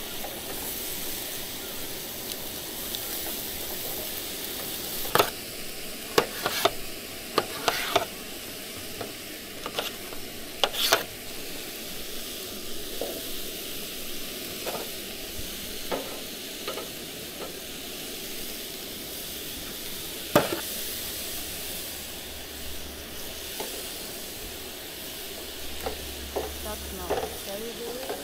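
Marinated fajita meat sizzling in a hot pan, a steady frying hiss broken by a series of sharp clinks and scrapes as a cooking utensil stirs and turns it, most of them in a cluster a few seconds in and a few more later on.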